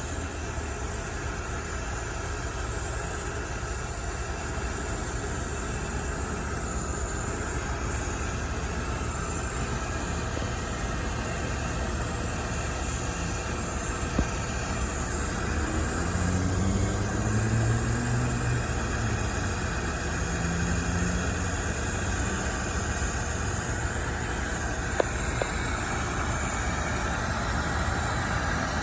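Brazing torch flame running with a steady hiss and low rumble as copper refrigerant lines are brazed onto a new compressor.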